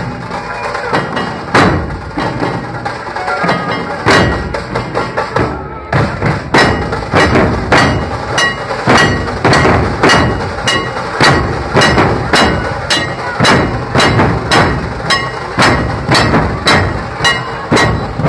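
Dhol-tasha troupe drumming in a procession, loud dhol strokes over a dense rattle of drumming. The strokes are irregular at first, then after a brief break about six seconds in they settle into a steady beat of about two strokes a second.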